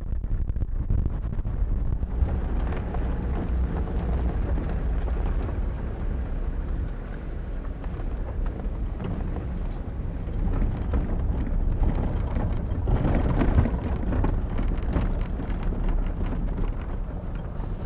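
Off-road 4x4 driving on a rough forest track: a steady low engine rumble with the crackle and rattle of tyres over the loose surface, swelling a little past the middle.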